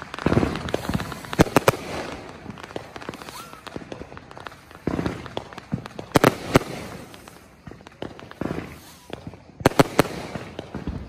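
Aerial fireworks bursting overhead: three pairs of sharp bangs, about a second and a half in, around six seconds and near ten seconds, with rumble and crackle between them.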